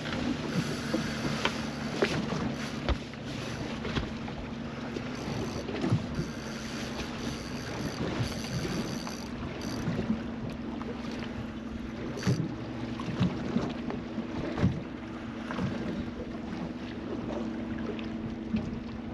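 A boat's motor running with a steady low hum, wind buffeting the microphone, and scattered light knocks.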